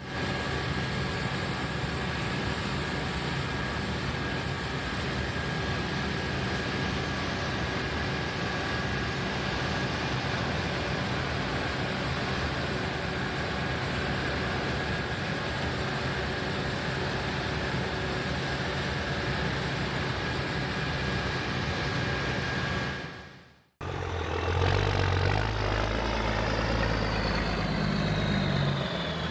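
Combine harvester running steadily while harvesting wheat, a dense mechanical noise with a thin steady whine. After an abrupt cut, a deeper engine sound follows, with a whine that slowly falls in pitch near the end.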